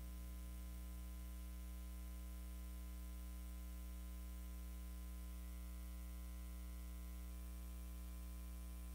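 Steady electrical mains hum with a faint hiss in the sound feed; a light pulsing in the hum stops about a second in.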